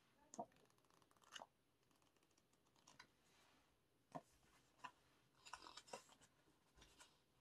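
Faint handling sounds of paper and card packaging: a few separate clicks and taps, then a short patch of rustling a little past halfway.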